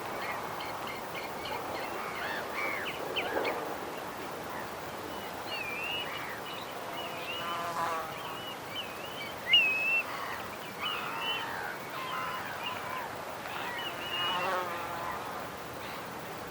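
Water birds chirping and calling, many short wavering calls overlapping over a steady background hiss, with the loudest call about nine and a half seconds in.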